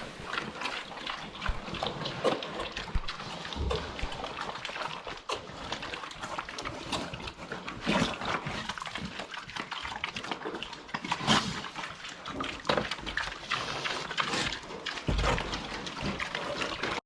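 Horses at feeding time: an irregular run of short crunches and rustles, with animal noises.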